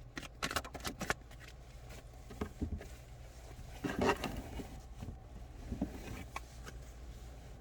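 Tarot cards being handled and shuffled: a quick run of crisp card flicks in the first second, then a louder rustle of cards about four seconds in, with a few soft ticks after.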